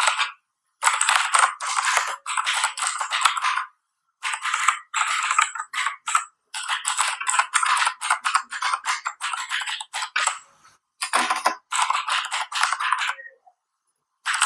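Zebronics Max Pro mechanical keyboard with clicky Cherry MX Blue–style switch clones being typed on: fast runs of sharp key clicks in bursts of a second or so, with short pauses between them. Quite a clicky noise.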